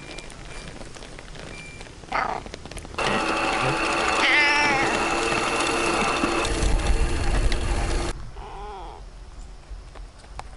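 Cat meowing a few times, short calls that waver in pitch. From about three seconds in to about eight seconds in, a louder sound of several held tones starts and stops abruptly under the meows.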